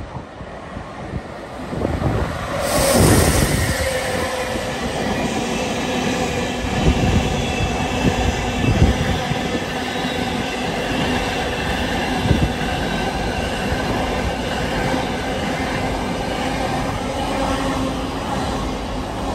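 Freight train running through at speed: the locomotive passes close about three seconds in, the loudest moment, followed by the steady rumble and clatter of container wagons rolling by, with a steady high whine over it.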